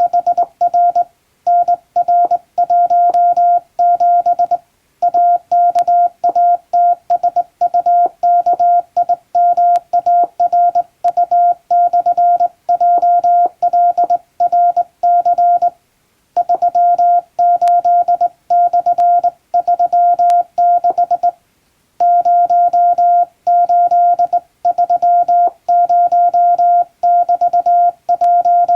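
English Morse code sent by hand on a straight key, heard as a single tone of about 700 Hz keyed on and off in dots and dashes, with short pauses between groups of characters.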